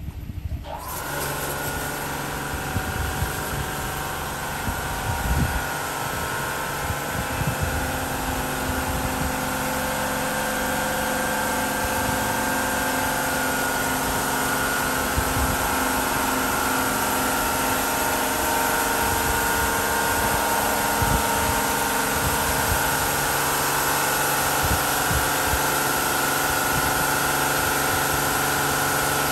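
Automatic gantry car wash machine starting its wash cycle about half a second in: motors and water pump running with a steady hum and high whine, over the hiss of spinning cloth brushes and water spray, growing slowly louder.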